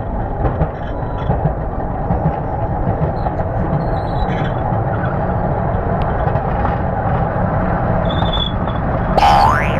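Roller coaster train running on its track, a steady rumble with light clatter. Near the end a cartoon sound effect comes in: a quick rising whistle.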